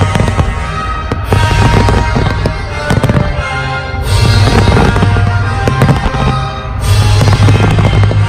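Many fireworks bursting and crackling in quick succession, over music with a deep, sustained bass.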